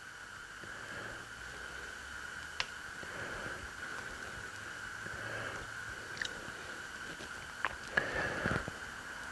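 A few light metallic clicks and handling sounds as Harley Ironhead Sportster transmission gears are picked up and turned over for inspection, over a steady high-pitched hum.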